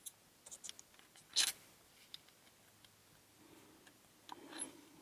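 Small parts of a pin-tumbler lock being handled during reassembly: a few light clicks and ticks, with one louder click about a second and a half in, and a soft rustle near the end.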